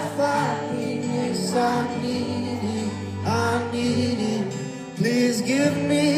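Live music: a male singer holding and bending long sung notes over guitar accompaniment, with a new, louder phrase coming in about five seconds in.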